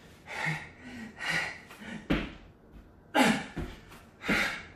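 A man breathing hard during burpees, with forceful gasping breaths about once a second. Two dull thuds come about two and three and a half seconds in, as his hands and feet land on a rubber floor mat.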